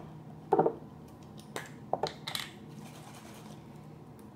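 A handful of short knocks and clicks from bottles and a shaving cream can being handled and set down around a plastic bowl.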